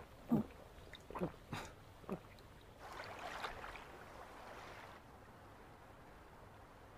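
A few quick gulps, each dropping in pitch, as someone drinks from a can, followed by a soft swell of hiss that fades away.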